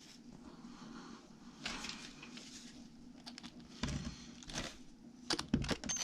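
Faint rustling and a few sharp little clicks and knocks of RC truck front-end parts being handled and slid back into place, with the clicks bunched in the second half.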